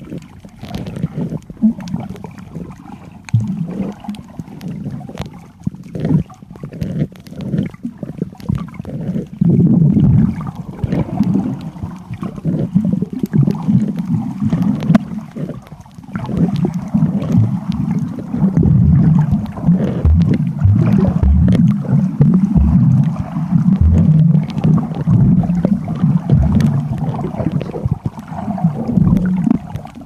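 Muffled underwater sound from a submerged camera: a low, uneven rumble of moving water with scattered clicks and knocks, louder in the second half.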